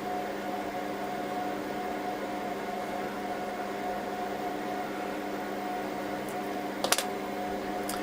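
Steady hum of running cooling fans, with several steady tones in it; two quick clicks about seven seconds in.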